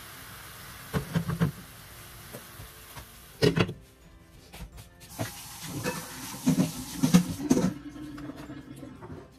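Asparagus hissing as it steams in a hot pan, with a few clicks about a second in, then a loud clank as a glass lid is set on the pan about three and a half seconds in, after which the hiss is muffled. Further knocks and clinks follow.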